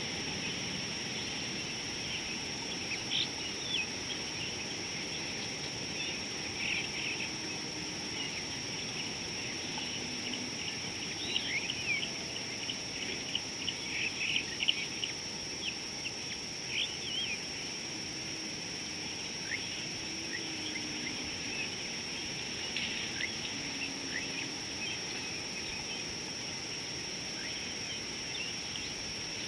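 Bushland ambience: many short bird chirps and calls, busiest in the middle stretch, over a steady high-pitched whine.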